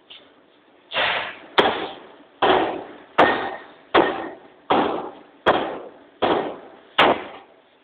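A 40cwt Massey power hammer striking a red-hot stainless steel ring in a steady run of nine heavy blows, a little more than one a second, each a sharp bang that dies away quickly. A lighter knock comes just before the run begins.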